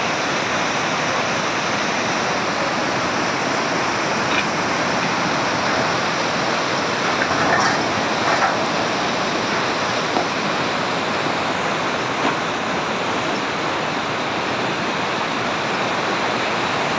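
Muddy floodwater rushing and churning in a fast torrent, a steady loud wash of water, with a few brief knocks near the middle.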